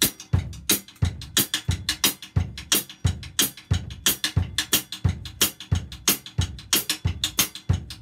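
Drum kit played with sticks: a steady train-beat pattern of even strokes on the snare drum with double accents, over a regular low bass-drum pulse.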